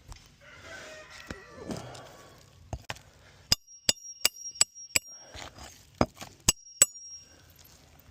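Hammer driving roofing nails into a replacement asphalt shingle: about nine sharp strikes in a little over three seconds, each with a high metallic ring. Before the strikes there is a drawn-out pitched sound that falls in pitch.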